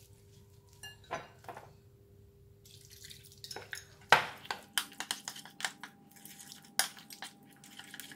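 Metal spoon stirring wet tempura batter in a glass mixing bowl: irregular clinks and taps of metal on glass with the wet slap of the batter, sparse at first and much busier from about four seconds in, where the loudest clink falls.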